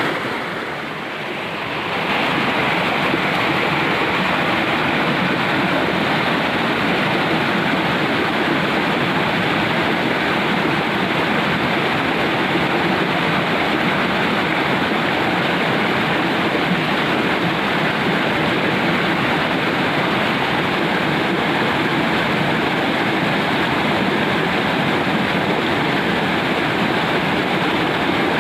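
Steady rushing of water flowing in a ditch, an even hiss that fades in over the first couple of seconds and then holds level.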